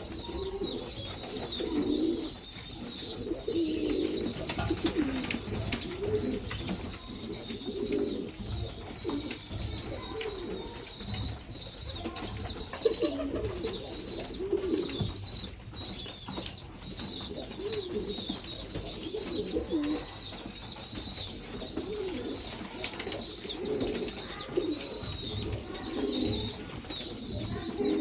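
Domestic pigeons cooing over and over, with a steady high warbling chatter of small birds running underneath.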